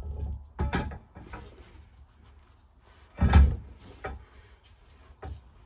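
A few knocks and clunks from parts being handled and shoved into place at a boat's transom, the loudest about three seconds in.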